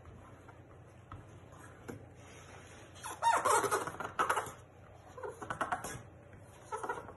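Adhesive flex-plate sheet being peeled from its backing and pressed down by hand, giving three bursts of squeaky crackling, the first about three seconds in.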